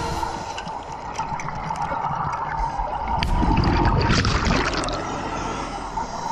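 Scuba regulator heard underwater: a rush of exhaled bubbles from about three seconds in, lasting about a second and a half, over a steady underwater hiss.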